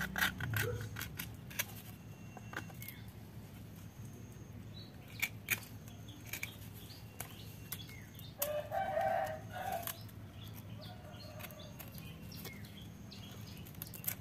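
Hands pulling and tearing at the dry sheaths and fibres on a young coconut-palm bonsai trunk, giving scattered crackling clicks and rustles. A bird calls once, briefly, about eight and a half seconds in.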